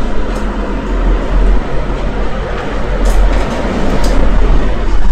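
Steady rumbling noise with a strong deep hum underneath, and two short ticks about three and four seconds in.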